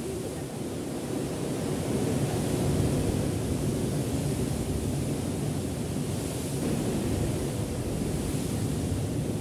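Steady rush of sea surf washing against the rocks below, mixed with wind on the microphone, swelling slightly about two seconds in.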